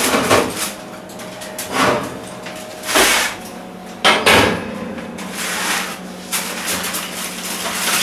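Metal roasting tin pulled out along an oven shelf and set down on a wooden chopping board: several sharp clanks and scrapes in the first half, then rougher rustling as the foil-covered tin is handled. A steady low hum runs underneath.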